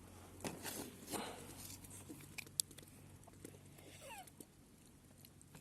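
A kitten gagging and retching, a few short noisy heaves with a short falling cry about four seconds in: the kitten is being sick, which the family puts down to fried sausage it was given.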